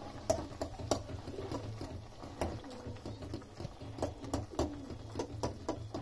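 Metal spoon stirring noodles in a steel pan, with repeated sharp clinks and scrapes against the pan, over a low steady hum.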